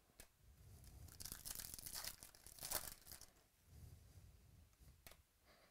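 Faint rustling scrape of stiff chromium trading cards sliding against each other as a stack is flipped through by hand, strongest from about one to three seconds in, with a couple of light clicks of card edges.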